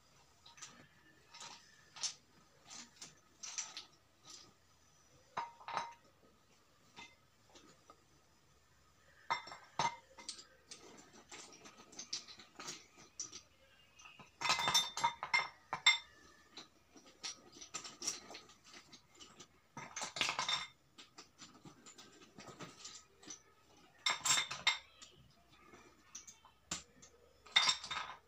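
Chunks of slate stone being handled and set into a glass bowl, clinking against the glass and each other in irregular bursts. The loudest clusters come in the second half.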